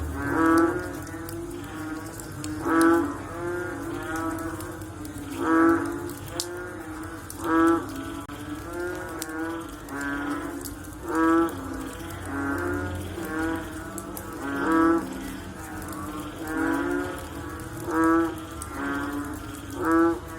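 A chorus of frogs calling after rain: low, bellowing croaks from several frogs overlapping, with a louder call standing out about every two seconds.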